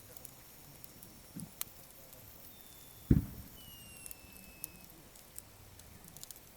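Campfire of gathered firewood crackling, with sparse small pops and one dull low thump about three seconds in.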